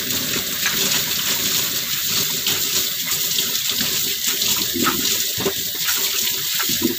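Kitchen tap running steadily into a sink, with water splashing.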